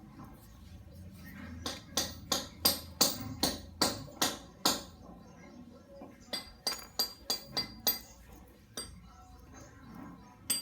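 Hammer tapping on a motorcycle drive chain's link pin: sharp, ringing metallic strikes about three a second. There are roughly ten in a first run, then after a short pause about seven more and a single last blow.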